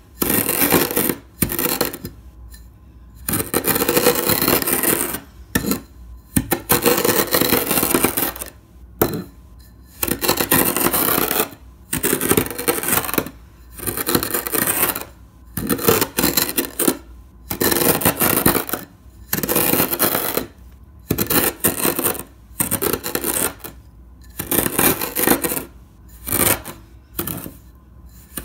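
Kinetic sand crunching and scraping as a clear plastic cup is pushed through it and scoops it up. The crunching comes in repeated strokes about every one and a half to two seconds, with short pauses between.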